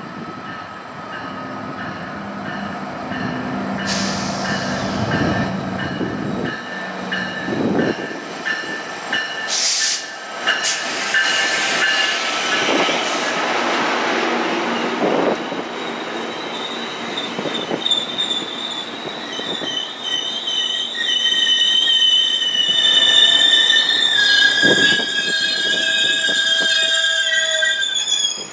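GO Transit train led by an MP40PH-3C diesel locomotive pulling into the station and its bilevel coaches rolling slowly past close by, the wheels squealing in high steady tones that grow louder in the second half. A few short loud clanks come through about 4 and 10 seconds in.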